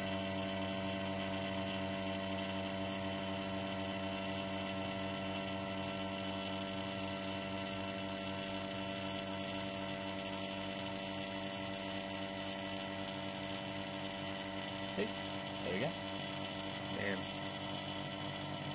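Vacuum pump running with a steady hum while two-part polyurethane resin degasses in the vacuum chamber.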